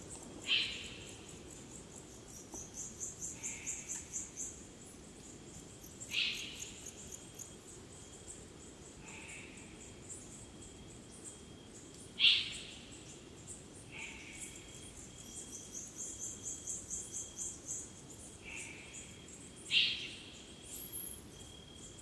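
Eurasian eagle-owl giving short harsh calls, four loud ones about six seconds apart with fainter calls in between, over a chorus of crickets. Twice a high insect trill pulses at about five beats a second, and a thin steady insect tone runs through the second half.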